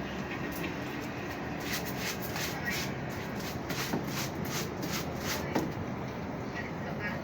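Laundry being handled: cloth rustling with scattered light clicks and knocks, irregular and short, over a steady low hum.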